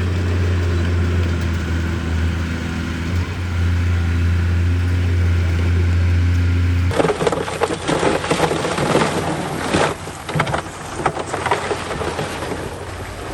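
Heavy diesel earthmoving machine running with a steady low drone. About seven seconds in, the sound cuts abruptly to loud crunching and cracking of dirt and broken stone, with many sharp knocks.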